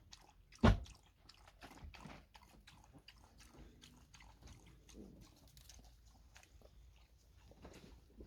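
Dogs eating from bowls: a run of crunching and chewing clicks, with one louder knock a little under a second in.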